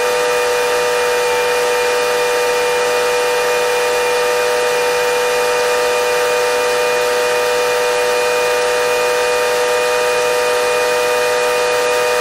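New Holland Model 60 silage blower running steadily with a whine at one pitch as a John Deere 716A forage wagon's beaters feed corn silage into it.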